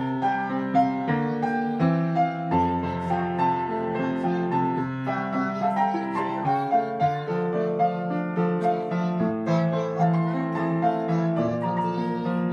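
Upright piano played by a child with both hands: a running melody of struck notes over held lower notes.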